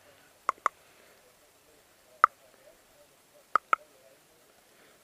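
Airsoft guns firing: five sharp pops, a quick pair about half a second in, a single shot after two seconds, and another quick pair past three and a half seconds.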